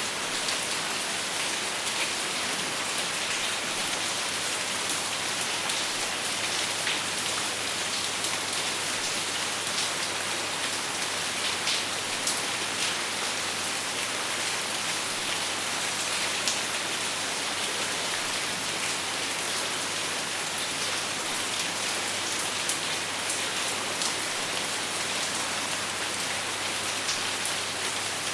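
Steady rain falling on a surface, with a dense patter of individual drop ticks and no thunder. A faint steady low hum lies underneath.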